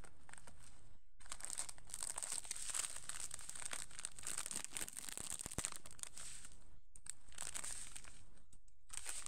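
Plastic packaging crinkling and rustling as it is handled, with a few short pauses.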